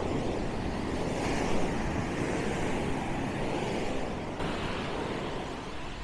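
Waves washing onto a sandy beach, a steady rush of surf, with wind rumbling on the microphone.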